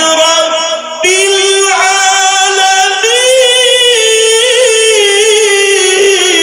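Male Quran reciter's voice in melodic tilawat: long held notes with wavering ornaments, the pitch stepping up about a third of the way in. There is a brief breath-break just before a second in.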